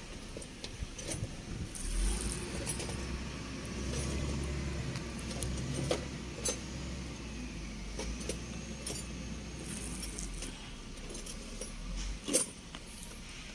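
Light clinks and clicks of small hard objects being handled, with a sharper clink about six and a half seconds in and another near the end, over a low steady rumble.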